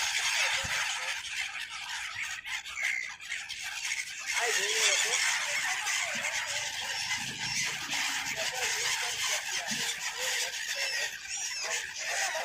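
A large flock of wintering waterbirds calling together in a dense, continuous chatter of high calls. From about four seconds in, lower, louder calls join in.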